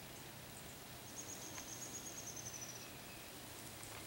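A small songbird's trill: a fast, even run of high notes held for nearly two seconds, starting about a second in, faint over a quiet background hiss.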